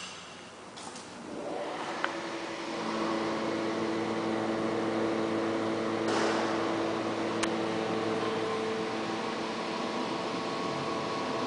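Elevator drive motor starting up and running with a steady hum of several tones, with a small click about two seconds in and a brief hiss about six seconds in.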